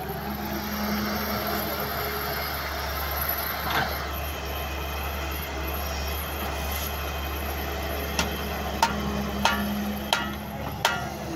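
Doosan wheeled excavator's diesel engine running steadily under load while it digs. A sharp knock comes about four seconds in, and a quick run of about five more sharp knocks comes near the end.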